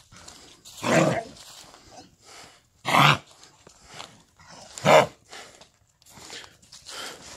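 Boxer–pit bull mix dog hacking and coughing in a run of harsh bursts, three of them loud and about two seconds apart with weaker coughs between. It is a chronic cough that the owner thinks lies somewhere between kennel cough and heartworm, almost as if he were coughing up food.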